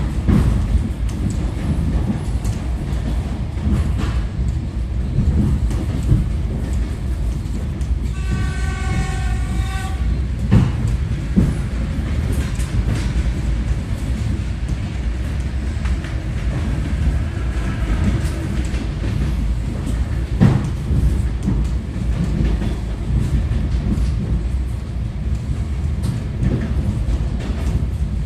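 Suburban electric train running, heard from inside the carriage: a steady low rumble with scattered wheel clicks. About eight seconds in, a train horn sounds for about two seconds.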